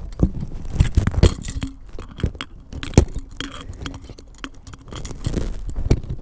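Close handling noise on a camera's furry microphone windscreen as hands work a lure's treble hook out of the fur. Irregular scraping and rustling with sharp clicks and knocks, loudest a little after one second and at about three seconds.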